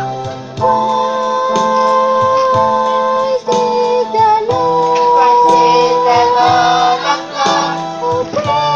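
School choir of children singing a Christmas carol, in long held notes.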